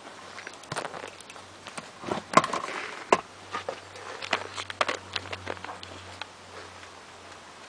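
Scattered clicks, knocks and rustles of a car's rear seat cushion being handled and pulled loose, with the sharpest knocks a little over two seconds and about three seconds in.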